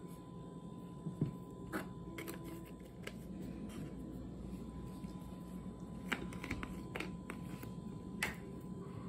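Scattered light clicks and taps of plastic spice jars being handled: a pepper shaker shaken over a glass bowl and a paprika jar picked up from and set on the countertop. There are a few clicks between one and two and a half seconds in and a cluster of them between about six and seven seconds.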